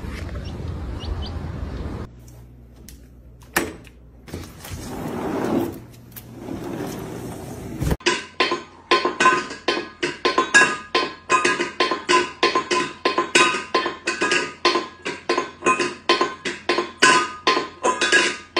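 From about eight seconds in, a cat bangs a metal food bowl against a tile floor. It clangs about four times a second, ringing briefly after each hit.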